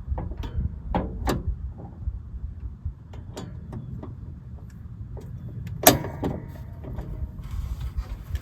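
Small metal tools and parts clicking and tapping as they are handled, with a sharp metallic click about six seconds in, over a steady low rumble.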